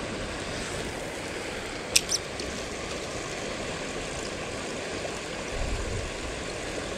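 Shallow stream rushing steadily over stones. Two sharp clicks come about two seconds in, and a brief low rumble a little past five seconds.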